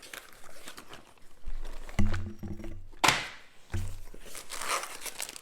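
Handling noises from unpacking a pistol range bag: rustling and a few knocks as items are moved and pulled out, with a louder swish about three seconds in.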